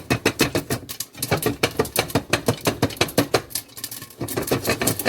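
Popcorn kernels popping in a pot on the stove: a rapid, irregular run of sharp pops, many each second, as the batch reaches full popping.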